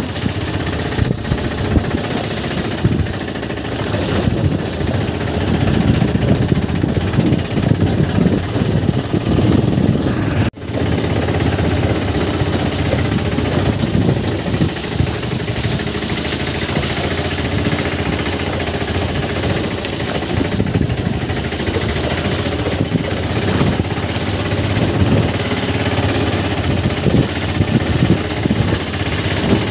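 Motorcycle riding over a muddy, potholed dirt road: the engine runs steadily under rough, irregular jolting and rattling from the bumps. The sound cuts out for an instant about ten and a half seconds in.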